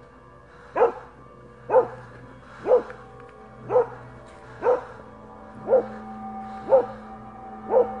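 A dog barking at a steady pace, one bark about every second, eight barks in all.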